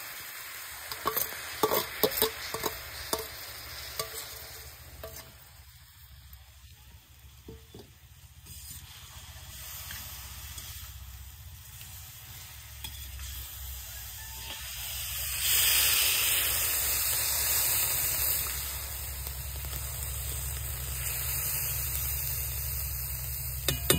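Food frying in a pan on a cooking fire, with several sharp knocks of a utensil stirring against the pan in the first few seconds. About fifteen seconds in, the sizzle suddenly gets much louder and keeps on.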